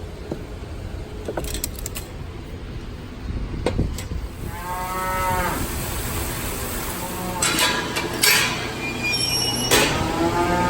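Cattle mooing: one moo about halfway through and another starting near the end, with a few sharp knocks in between.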